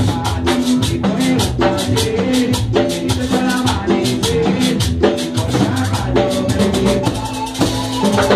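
Live cumbia band playing, with held keyboard chords over bass and a steady beat of drums and shakers.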